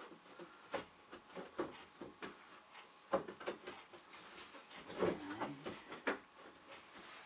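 Irregular knocks and clicks as the panels of a flat-pack games table frame are pushed and fitted together by hand.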